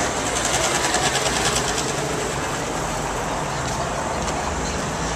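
Roman city street traffic noise, with a small motor scooter's engine passing close in the first couple of seconds, its rapid rattle fading out.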